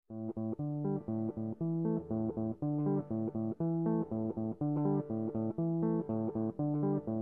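Background music: plucked guitar and bass playing a steady, repeating riff that starts suddenly out of silence.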